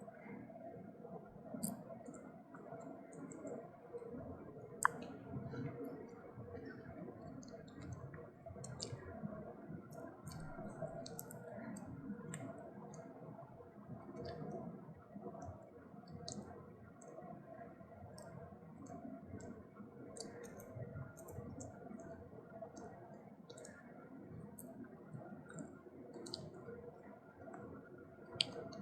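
A puppy chewing a crunchy Pepero-style dog treat stick, many small irregular crunching clicks.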